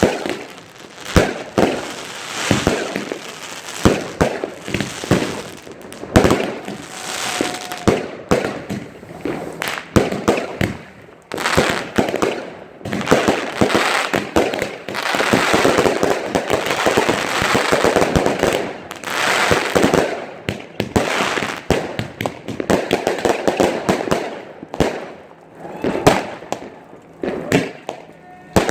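Fireworks display: shells bursting in a rapid, irregular string of loud bangs, thickening into a denser, nearly continuous barrage about halfway through.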